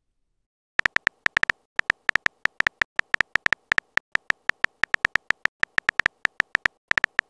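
Simulated phone-keyboard typing sound effect from a texting-story animation: a quick run of short, identical key clicks, about six a second, starting about a second in as a message is typed out.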